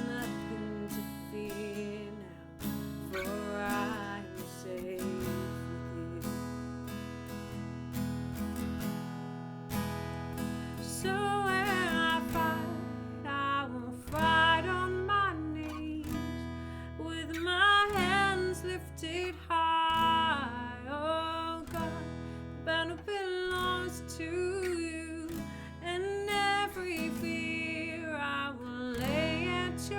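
Acoustic guitar strumming chords, with a voice singing a worship song from about ten seconds in.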